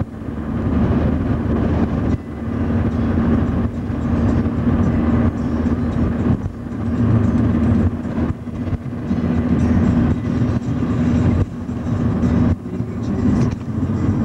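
Road and engine noise heard inside a moving car: a steady loud drone with a constant hum, dipping briefly every few seconds.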